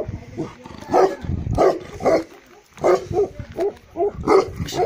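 Tibetan mastiff barking, a run of about ten very deep barks in quick succession, two to three a second at the fastest.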